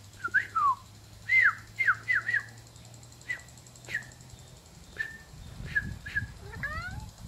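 Birds chirping: a run of short, clear whistled notes, some sweeping downward, thickest in the first couple of seconds and then scattered. A faint low steady hum runs underneath for the first half.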